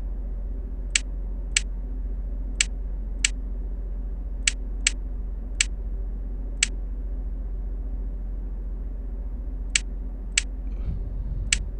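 Eleven short, sharp clicks at uneven intervals, with a pause of about three seconds midway, as keno spots and cards are selected, over a steady low electrical hum.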